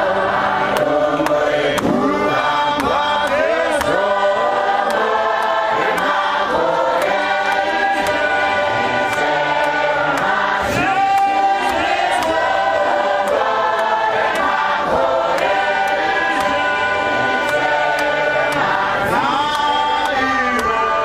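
A church congregation singing a hymn in many voices, led by a man singing into a microphone. Sharp clicks keep a steady beat under it, about two a second.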